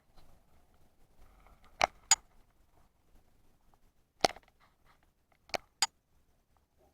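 Five sharp clicks: a quick pair about two seconds in, a single one about four seconds in, and another quick pair near the end.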